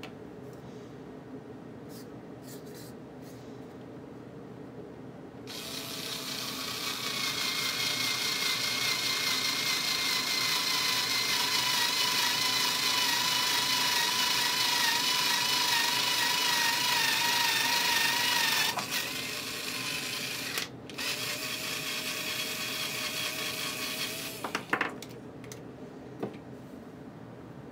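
Cordless drill running with a steady whine as its bit bores through a cardboard packing corner piece, the pitch sagging slightly under load. It starts about five seconds in and runs for about thirteen seconds, then after a short break runs again more briefly and ends with a couple of sharp clicks.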